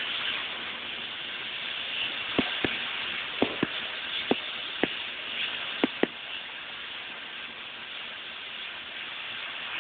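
Oxy-fuel cutting torch hissing steadily as it cuts through steel plate. About eight sharp pops come mostly in close pairs between roughly two and six seconds in.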